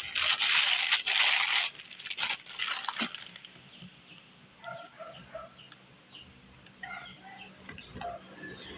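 Clear plastic bag crinkling loudly for about a second and a half, followed by a few light clicks and taps as the packaging and box are handled. A few faint short chirping calls follow later.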